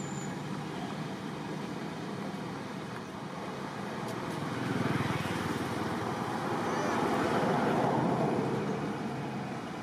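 Steady outdoor road-traffic noise that swells twice, about five seconds in and again near the end, as vehicles pass, with a faint bird chirp.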